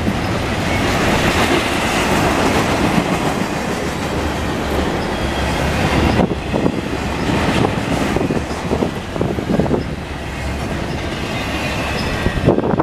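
Double-stack container well cars of a freight train passing close at speed: the steady rumble of steel wheels on rail with clickety-clack over the rail joints. It drops away suddenly near the end as the last car goes by.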